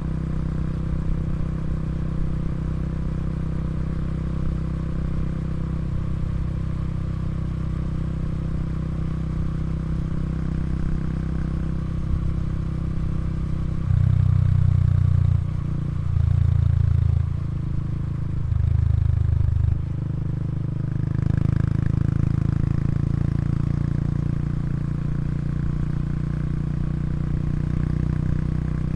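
Honda Super Cub 110 Pro's single-cylinder engine idling steadily through its exhaust. About halfway through, the throttle is blipped three times in quick succession, each rev lasting about a second and a half, and the engine then settles back to idle.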